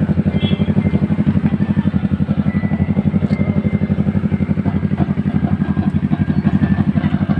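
A Yamaha sport bike's engine idling steadily, with an even, rapid pulsing beat.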